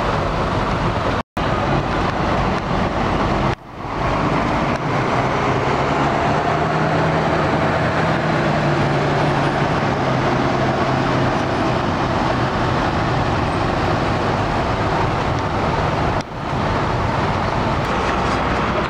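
Diesel bus engine running as a coach moves off through the terminal, over a dense din of traffic, with a steady low hum standing out for several seconds in the middle. The sound breaks off for an instant three times.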